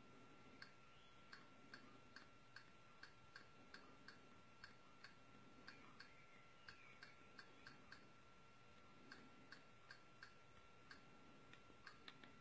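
Faint, even clicks, about two or three a second, each one stepping a TV media-centre movie menu along by one title. A faint steady high tone runs underneath.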